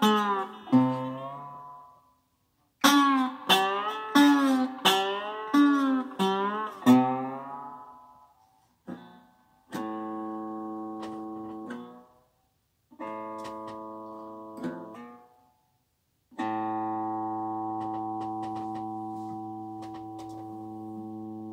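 Electric guitar played flat on the lap like a lap steel: a run of picked notes with wide, wavering bar vibrato and slides for the first eight seconds or so, then three held chords with short gaps between them, the last left to ring out.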